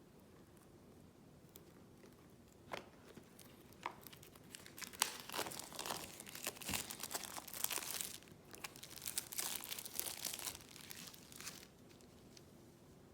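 Plastic shrink-wrap being torn and crinkled off a card game box: a few separate clicks, then about seven seconds of dense crackling that stops near the end.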